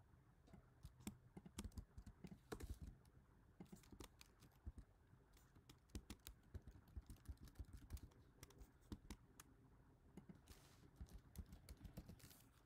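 Faint, irregular typing on a computer keyboard: quick runs of keystrokes with short pauses between them, as lines of code are entered.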